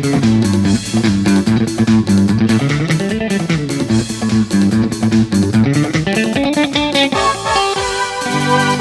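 Live band playing an instrumental interlude of a Bengali pop song: a guitar melody over bass guitar and a steady drum beat, with a held keyboard chord coming in near the end.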